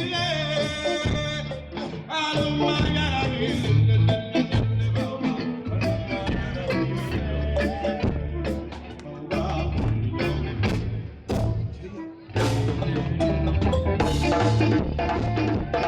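Live band playing, with drum kit, heavy bass and a melodic line, heard through a poor-quality audience recording. The music dips briefly about two-thirds of the way in, then carries on.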